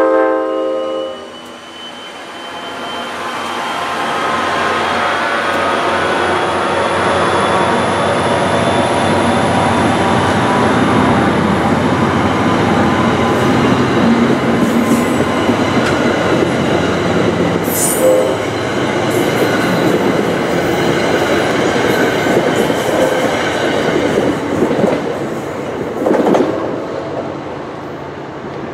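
The tail of a diesel locomotive horn blast cuts off about a second in. Then a NJ Transit passenger train's coaches roll past at speed with steady wheel-on-rail noise and a few sharp clicks, dying away near the end as the last car clears.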